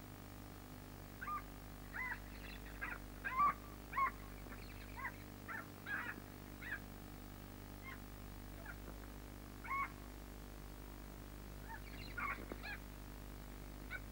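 Wild animal calls: short, harsh, caw-like cries repeated at irregular intervals, thick through the first half, then a few more near the end, over a low steady hum.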